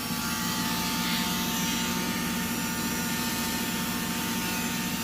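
Electric drill with a burr bit running at a steady speed, a constant motor hum with a higher steady whine over it.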